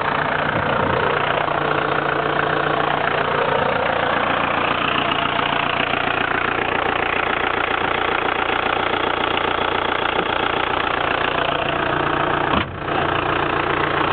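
1985 Ford Escort Mk3's 1.6-litre four-cylinder diesel engine idling steadily with the bonnet open. There is a single knock near the end, as the bonnet is shut.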